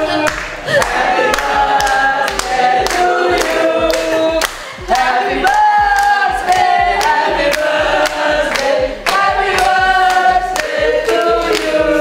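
Several voices singing together to a steady beat of sharp strikes about twice a second.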